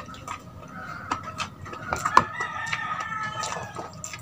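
A rooster crowing once, a long call lasting about two and a half seconds, over scattered sharp clicks of eating at the table.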